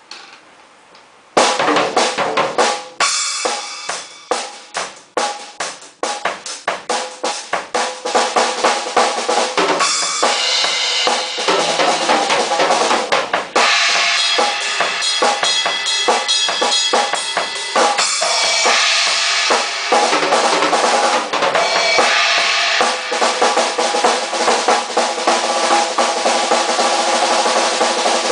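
Acoustic drum kit played hard and fast: bass drum, snare, toms and cymbals in dense fills and rolls. It starts suddenly about a second and a half in after a brief quiet moment.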